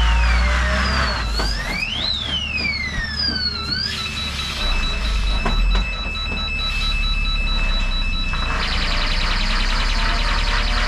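Electronic siren-type alarm cycling through its tones: rising and falling wails for about four seconds, then a steady high beep, then a rapid warble from about two seconds before the end. Under it, a heavy truck's diesel engine runs with a steady low rumble.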